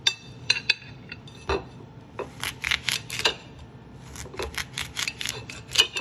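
A knife slicing a small, warm watermelon on a plate, the blade clicking and scraping against the plate in a run of irregular taps that come thicker in the second half.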